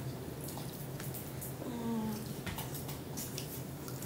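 Faint, scattered clicks and crackles of boiled crawfish and crab shells being cracked and peeled by hand, with soft wet squishing of sauce-coated seafood, over a steady low hum.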